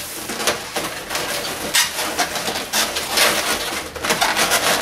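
Inflated latex 260 modelling balloons squeaking and rubbing against each other as one balloon is pulled through the balloon head and worked by hand, in a string of irregular squeaks.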